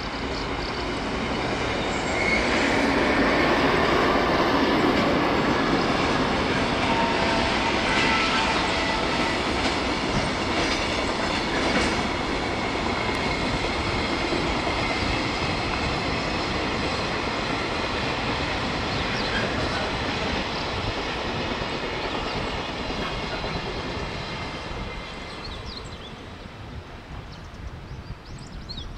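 Freight train of Koki container flatcars running past at speed behind an electric locomotive: the steady rush and rumble of steel wheels on the rails, loudest in the first dozen seconds and fading near the end as the train draws away.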